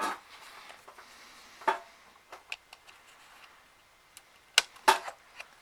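Scattered light clicks and taps of a laptop keyboard being handled and fitted into the laptop's case: a sharper click a little under two seconds in, a few faint ones after, and two more sharp clicks near the end.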